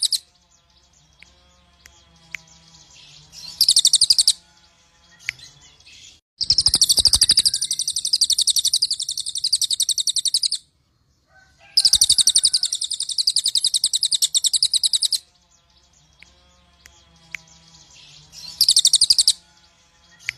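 Crested jay (cililin) calling in loud, high, rapid rattling trills: a short burst about four seconds in, two long trills of about four and three seconds through the middle, and a short burst near the end, with quiet gaps between.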